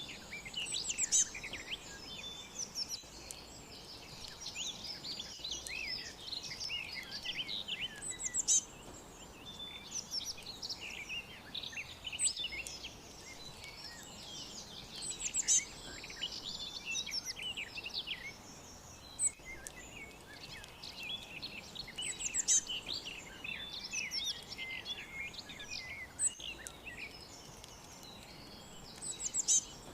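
Many small birds chirping and twittering at once, a dense chorus of quick, high notes with sharper peeps every few seconds.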